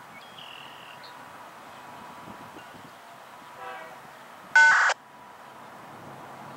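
A single short, loud horn beep about four and a half seconds in, cut off sharply, over the faint steady sound of an approaching freight train.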